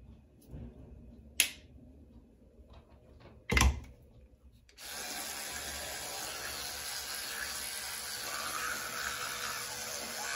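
A sharp click and a knock, then about five seconds in an electric toothbrush switches on and runs steadily, buzzing against the teeth while they are brushed.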